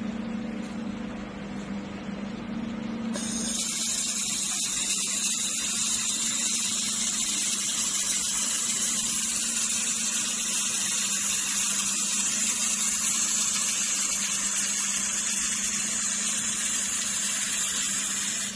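3000 W handheld fiber laser welder welding 6 mm aluminum: a steady, loud high hiss starts about three seconds in and stops suddenly near the end. A low steady hum runs under it throughout.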